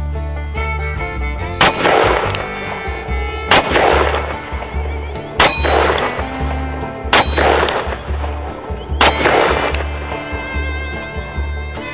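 Five shots from a Ruger Blackhawk single-action revolver chambered in .30 Carbine, fired slowly about two seconds apart, each followed by a brief ring, over background music with a steady beat.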